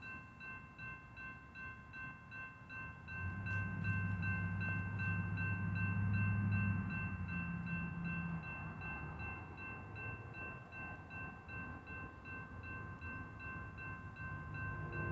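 Railroad crossing warning bell ringing steadily at about two strikes a second. About three seconds in, a loud low rumble rises and then slowly eases.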